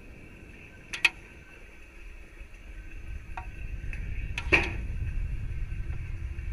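Audio from a sounding rocket's onboard camera near apogee: a steady high whine with a low rumble that grows louder about three seconds in. Sharp clicks come about a second in and again, loudest, about four and a half seconds in.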